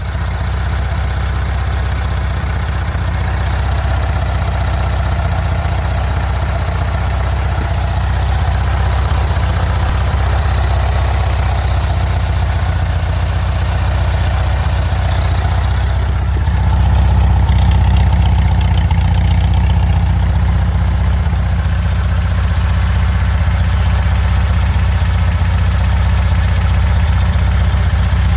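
Volkswagen Super Beetle's air-cooled flat-four engine idling steadily after an exhaust leak repair, getting slightly louder about two-thirds of the way through.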